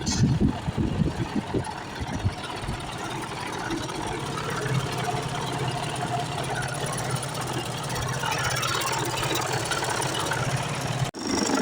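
Mercedes-Benz Actros MP4 truck's diesel engine idling steadily, with a few irregular knocks in the first couple of seconds.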